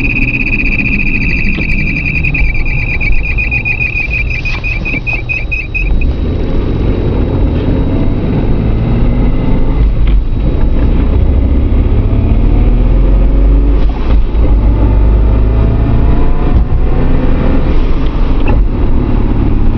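Car driveline noise, the loud noise the owner places in the transmission area: a strong high-pitched whine with a rapid flutter over the engine for about six seconds, which then cuts off. After it the car's engine and a heavy low rumble carry on, the engine rising and falling in pitch.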